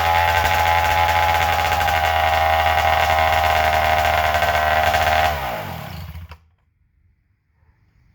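McCulloch 101B two-stroke chainsaw running at a steady high speed, then winding down with falling pitch about five seconds in and stopping.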